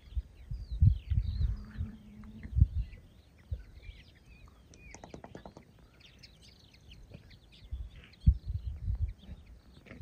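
Small birds twittering continuously with many short high chirps, over gusts of wind buffeting the microphone in low rumbling surges. A quick rattle of clicks comes about halfway through.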